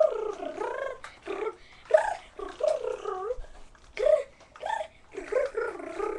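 A boy imitating an electric guitar with his mouth: a run of short pitched vocal riffs that bend up and down, with short pauses between them.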